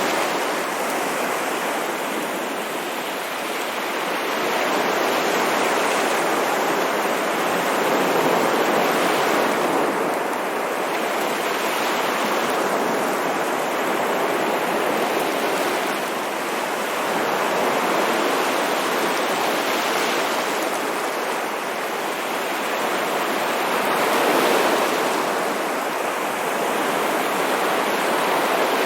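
Ocean waves washing onto a shore, a continuous rush of surf that swells and eases every few seconds.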